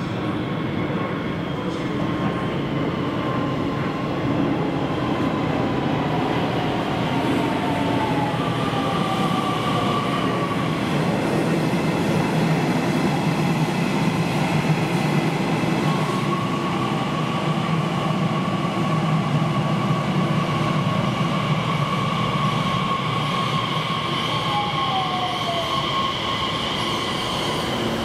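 Nishitetsu Tenjin-Ōmuta Line electric train running: a steady rumble with high ringing tones, and two short falling squeals, about a third of the way in and near the end.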